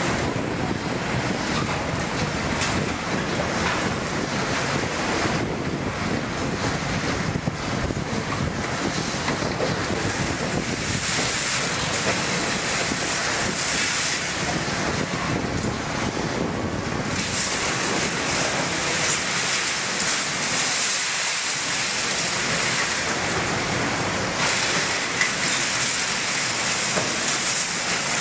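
Caterpillar 352 demolition excavators working: diesel engines running under load while a grapple picks up and moves debris and scrap, with a dense, steady din of engine noise and rattling rubble.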